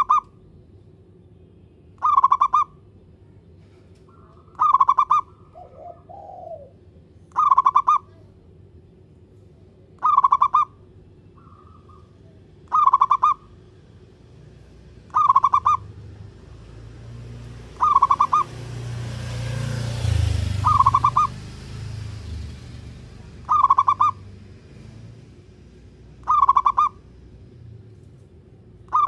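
Zebra dove (perkutut) singing its cooing song: a short burst of rapid coo notes repeated about every two and a half seconds. A low rumble rises and fades around the middle.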